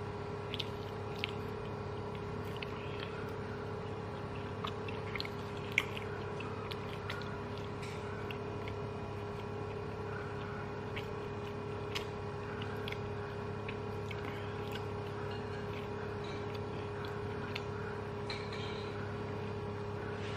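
A person eating rice and chili tempeh orek by hand: quiet chewing with scattered small clicks, over a steady hum.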